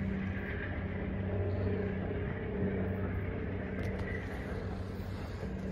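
Steady low engine rumble with a continuous hum, and a few faint clicks near the end.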